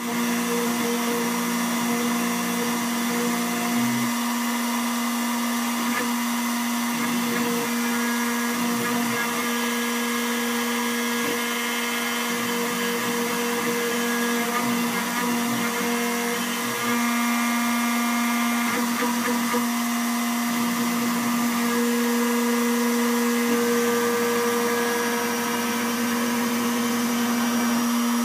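CNC router spindle running steadily, a continuous motor whine over a hiss.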